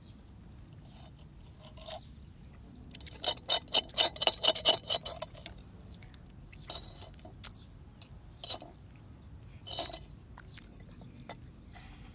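Eating sounds: a quick, loud run of sharp clicks and scrapes lasting about two seconds, followed by a few single clicks spaced out over the next several seconds.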